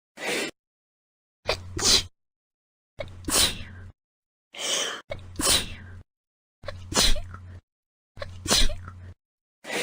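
A rapid string of separate sneezes from different people, about seven in a row. Each is a sharp burst, often led by a short intake of breath, and is cut off abruptly with dead silence before the next.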